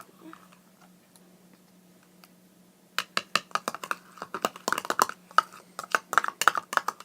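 Soap-and-salt slime being squeezed and played with by hand, giving a rapid, irregular run of wet clicks and pops that starts about three seconds in.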